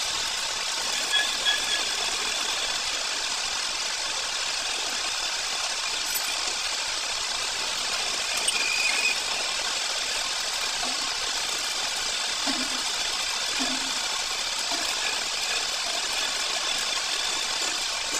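Metal lathe running steadily, its four-jaw chuck spinning a metal part while the toolpost cutting tool turns it.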